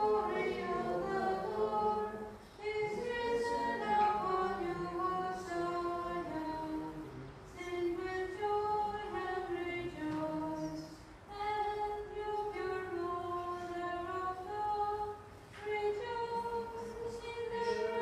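Unaccompanied Byzantine liturgical chant sung by several voices, women's voices among them, in phrases separated by short breath pauses.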